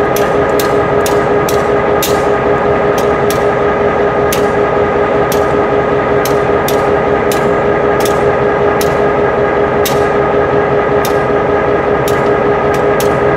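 Railroad grade-crossing bells ringing: sharp metallic strikes, several a second and out of step with one another, over a steady ringing tone.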